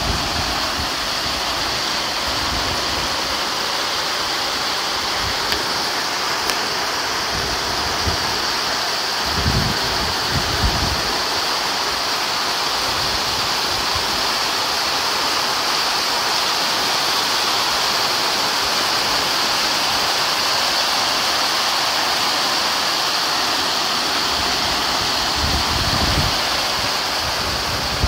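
Heavy rain pouring down steadily onto a paved courtyard, a continuous rushing hiss, with a few brief low rumbles about ten seconds in and again near the end.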